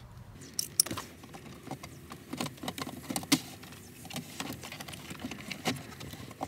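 Irregular plastic clicks, taps and light rattles as the truck's center console trim, screws and wiring are handled by hand, with the sharpest click about a second in and another a little past the middle.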